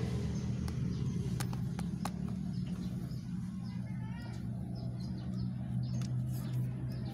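A steady low motor drone, with a few sharp clicks and faint bird chirps about halfway through.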